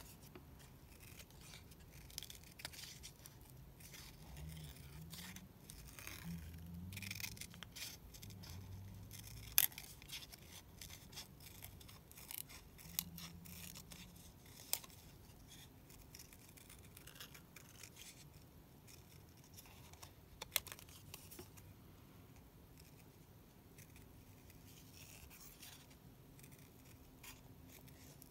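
Small craft scissors snipping around a paper cut-out: quiet, irregular snips and rasps, with a few sharper clicks.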